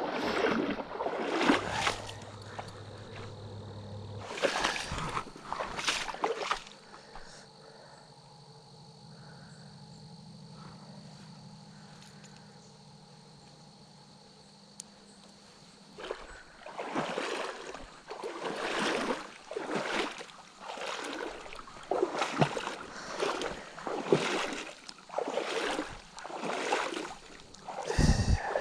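Footsteps wading and sloshing through a shallow creek, about one stride a second, with a quiet pause in the middle when the walking stops.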